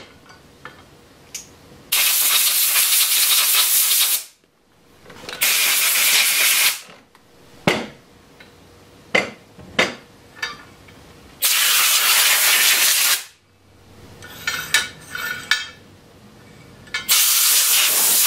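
Compressed-air blow gun blowing out a lathe's tool-rest banjo: four bursts of hissing air, each one to two seconds long, the last starting near the end. Short metal knocks and a rattle from the banjo being handled fall between the bursts.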